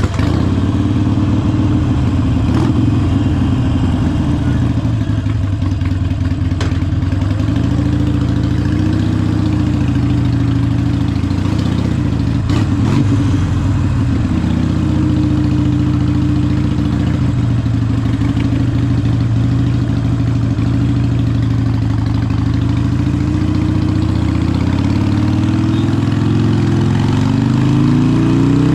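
Harley-Davidson Sportster 883 SuperLow's air-cooled 883cc Evolution V-twin running through a Vance & Hines exhaust, idling with a few gentle rises and falls in revs. Near the end the revs climb steadily.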